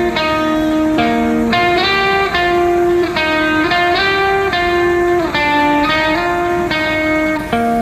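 Background music: a plucked guitar playing a melody of changing notes.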